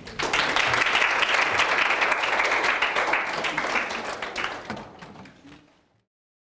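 Audience of students applauding, a dense patter of many hands clapping that fades away over the last second or so and ends in silence.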